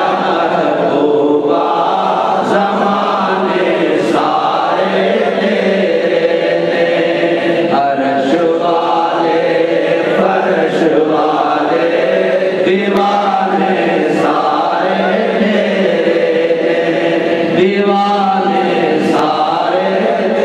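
A man's voice chanting a religious recitation into a microphone, in long held melodic phrases with brief pauses for breath.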